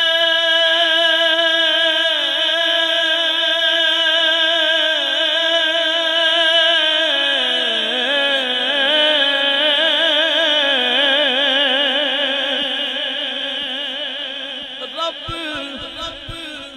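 A male qari reciting the Qur'an in the melodic style, drawing one long phrase out with rapid wavering ornaments. The pitch steps down about seven seconds in, and the voice fades as the phrase ends near the end.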